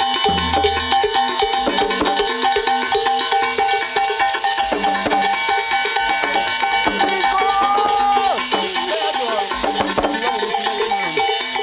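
Zenli percussion ensemble playing: metal rattles shaking without a break over ringing iron bells and a few low drum strokes, with a voice gliding up and down in the middle and toward the end.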